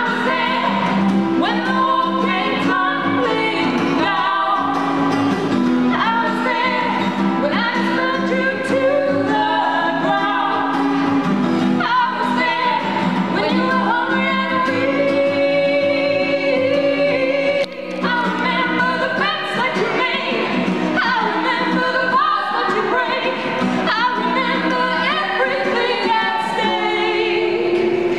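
Two women singing a song together to a strummed acoustic guitar.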